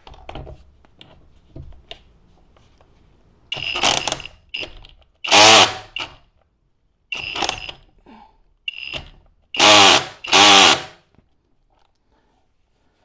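Kobalt 24V Max brushless SDS-Plus rotary hammer in drill mode, reverse, turning a lug-nut socket on a 1/2-inch square adapter. It runs in several short bursts of about a second each, its motor whine wavering in pitch. It lacks the torque to break loose a lug nut tightened to 80 foot-pounds.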